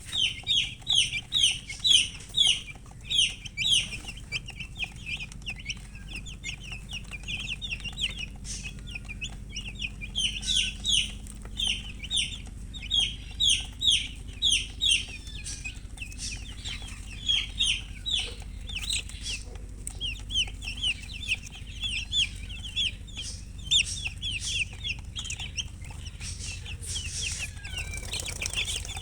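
Chicks chirping: a rapid stream of short, high peeps, several a second, with sparser stretches in between before the chorus picks up again.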